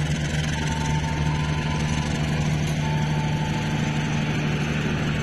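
Passenger train carriages rolling slowly past with a steady low mechanical drone. A faint high tone comes and goes over it, about a second in and again near the middle.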